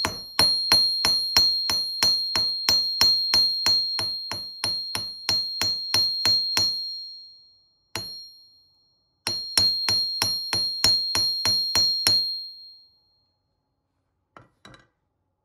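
A hammer striking the end of a copper wire on a steel anvil in quick, even blows, about three a second, each leaving the anvil ringing with a high tone. The blows stop about seven seconds in; after a single blow a second run of about ten follows.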